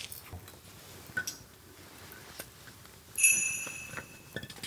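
Light clicks and knocks, then about three seconds in a single sharp metallic clink that rings on a few high tones for about a second as it fades.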